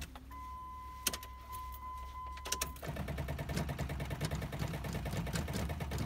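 A car's dashboard warning tone, steady for a couple of seconds, and a click of the ignition key. Then a fast, steady mechanical chatter from the starter as the engine is turned over and fails to catch, even though the jump-start has given the car power.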